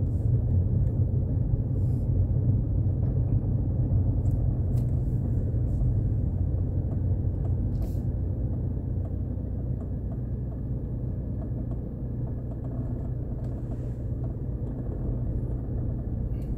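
Steady low rumble of a car's engine and tyres heard from inside the cabin as it drives slowly along a road, with a few faint clicks.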